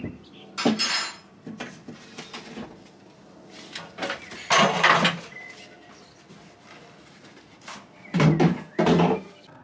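Household items being handled on a hard floor. A large round marble board is set against a wall, and a metal folding chair is picked up and put down. The result is a few scattered knocks and scraping clatters, with the loudest clatters around five seconds in and twice near the end.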